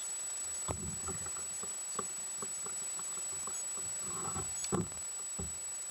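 Scattered knocks and taps as a freshly landed largemouth bass and fishing rod are handled on a plastic kayak, the loudest cluster near the end, over a steady high-pitched whine.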